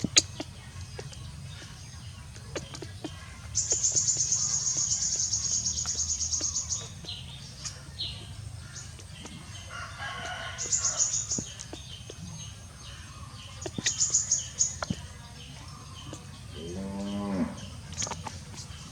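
Animal sounds: a rapid high trill comes in three bursts, the first and longest lasting about three seconds, with scattered chirps and clicks around it. Near the end there is a short call that falls in pitch.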